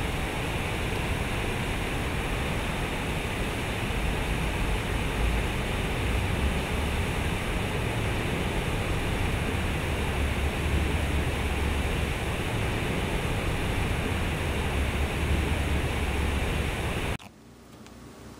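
Water from a large concrete sculpture fountain pouring and splashing into its pool as a steady rushing noise with a low rumble underneath. It cuts off suddenly near the end, leaving faint room hiss.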